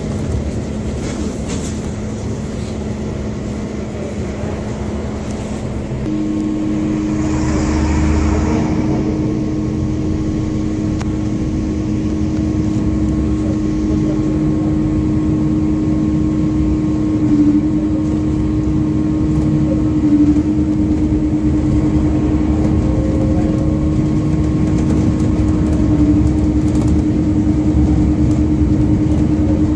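MAZ 205 city bus heard from inside the passenger cabin while under way: the engine and drivetrain run steadily with a constant whine. The sound grows louder and a second whining tone joins about six seconds in, and there is a brief hiss a couple of seconds later.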